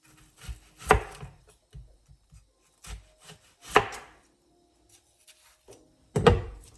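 Knife chopping an onion on a cutting board: three sharp chops about three seconds apart, with lighter taps between.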